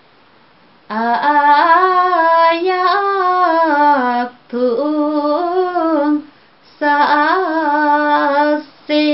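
A woman singing a Limbu hakpare samlo unaccompanied, in long phrases with wavering, ornamented notes. She starts about a second in and breaks briefly between phrases for breath.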